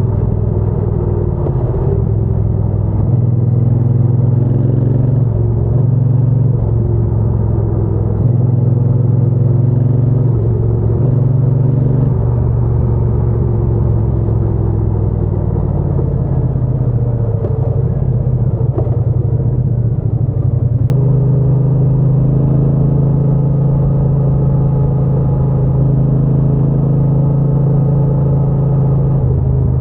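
Triumph Bonneville T120's 1200 cc parallel-twin engine and exhaust heard while riding, the engine note stepping up and down several times with throttle changes before holding steady for the last several seconds.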